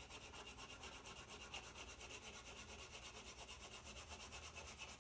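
White Conté crayon scratching across black drawing paper in rapid, even back-and-forth hatching strokes, laid on lightly to build a pale tone. The sound is faint.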